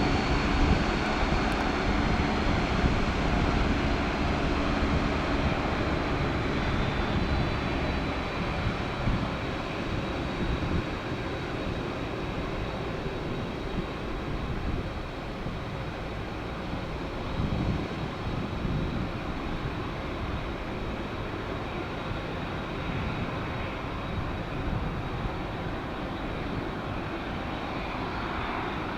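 Jet engines of a Boeing 767-300ER airliner running, a steady rushing noise with a thin high whine, slowly fading as the plane moves away.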